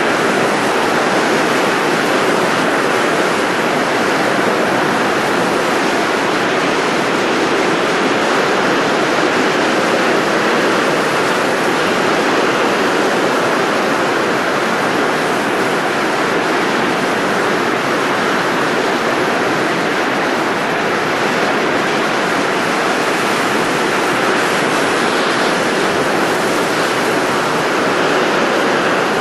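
Steady rushing noise of blowing air, even and unbroken, with no pitch and no gusts.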